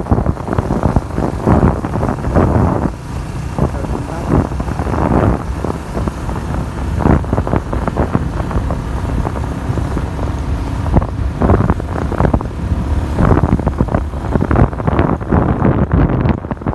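Wind buffeting the microphone of a moving motorbike in irregular gusts, with the engine and tyre noise running underneath.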